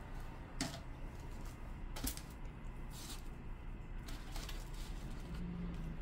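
A few light, sharp clicks and knocks, about four, spaced irregularly, over a steady low hum.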